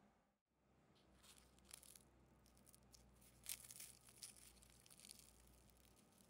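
Faint crackling of flaky baked puff pastry torn apart by hand, a run of light crisp crackles, sharpest about three and a half seconds in.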